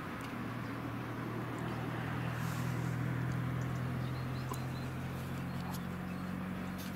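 Diesel engines of farm harvesting machinery running at a steady drone, a little louder in the middle, with a few faint high ticks over it.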